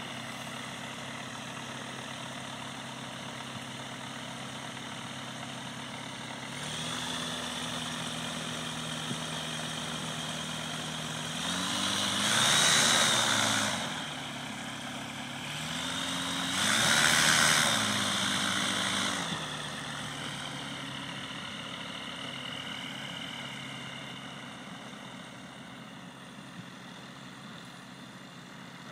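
Ultralight aircraft's propeller engine idling steadily, then revving up twice briefly with its pitch rising and falling, as in a pre-takeoff run-up. It then drops back to a lower speed and grows quieter as the plane taxis away.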